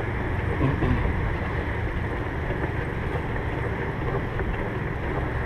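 Steady wind rumble on the microphone of a bicycle-mounted action camera while riding a bicycle along, with the bike's rolling noise underneath.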